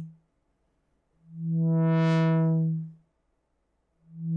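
A Moog Mother-32 analogue synthesizer holding one steady low note while a slow triangle LFO sweeps its low-pass filter cutoff up and down, so the note swells open to a bright buzz and closes to silence. One swell fades out just after the start, a full one peaks about two seconds in, and another is opening near the end.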